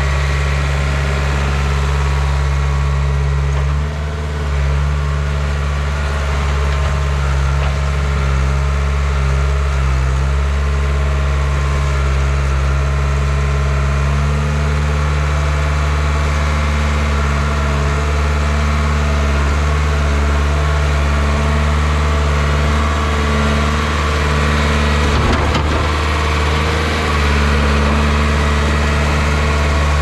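Caterpillar 931B crawler track loader's diesel engine running steadily while the machine pushes dirt, its note shifting slightly with the load.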